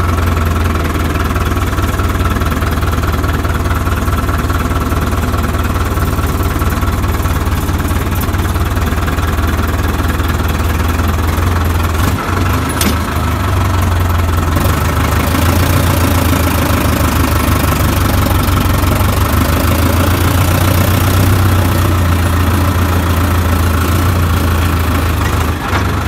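Sonalika tractor's diesel engine running steadily, heard from the driver's seat, with a steady whine above the engine note that is typical of its turbocharger whistling. The engine gets slightly louder a little past halfway, and there is one brief click a little before halfway.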